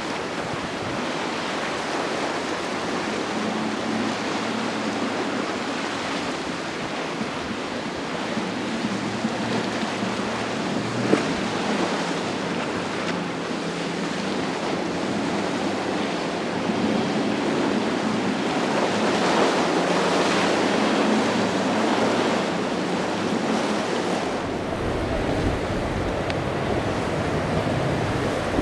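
Powerboats running fast through choppy inlet water: a steady hiss of spray and wake over a low engine drone, with wind on the microphone. A single sharp knock about eleven seconds in. The sound changes abruptly near the end to a deeper, heavier rumble.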